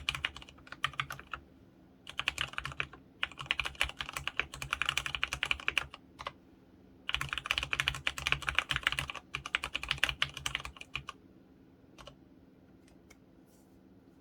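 Fast typing on an mStone Groove F mechanical keyboard with fully lubricated brown tactile switches (35g), keystrokes in quick bursts separated by short pauses. The typing stops about eleven seconds in, followed by a couple of stray clicks.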